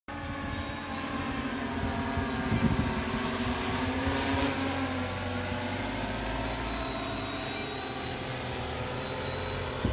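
Tarot T810 hexacopter's brushless electric motors and propellers running in flight: a steady buzz of several tones with a thin high whine over it.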